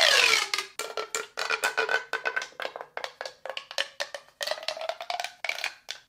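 Plastic pop tube being stretched and squashed: a falling whooshing tone at the start, then a fast run of crunchy clicks with a hollow ring as its ridges pop open and shut.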